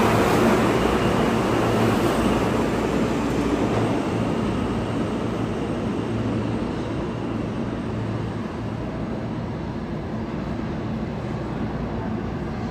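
New York City Subway G train moving through the station, its wheel and motor noise gradually fading as it draws away.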